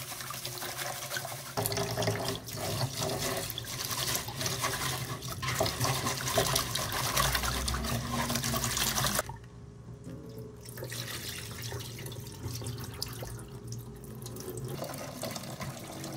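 Rice being rinsed in a plastic bowl in a stainless steel sink: water runs from the kitchen tap into the bowl while a hand swishes the grains through the water. The sound drops suddenly to a quieter run about nine seconds in.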